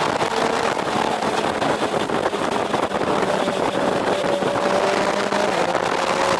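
Motorcycle engine running at expressway speed under a steady rush of wind noise, its engine note climbing slowly in the second half.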